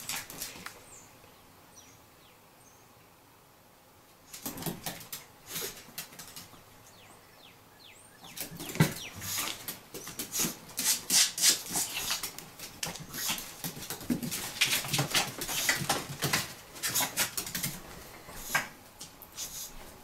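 A chihuahua and a ferret scuffling in play: quick claw scratches and taps on a hardwood floor mixed with rustling fabric. It is nearly quiet at first, then busy from about four seconds in, with one sharp knock near the middle.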